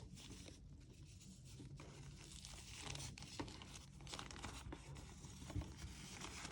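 Faint rustling and crinkling of unboxing packaging being handled, with a few small clicks, over a low steady hum.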